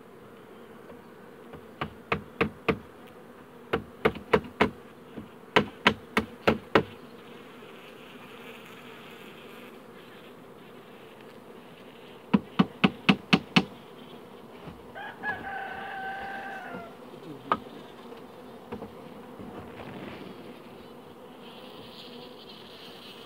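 Honeybee colony humming steadily on the comb, broken by several quick runs of sharp clicks early on and again about halfway, and by a short pitched tone lasting about two seconds a little after that.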